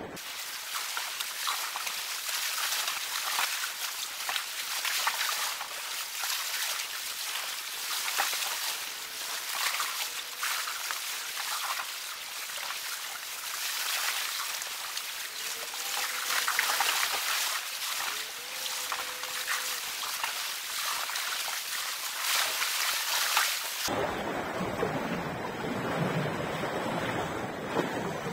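Small sea waves washing and splashing against shoreline rocks, a steady hissing surf. About 24 seconds in it changes abruptly to a softer, lower wash.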